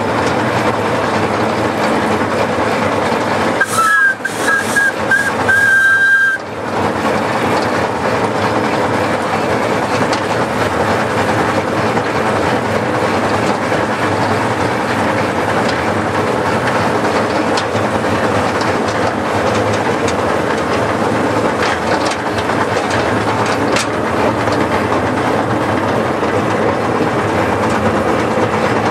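Miniature steam locomotive running along the track with a steady running noise. About four seconds in, its two-note whistle gives a few short toots and then a longer blast.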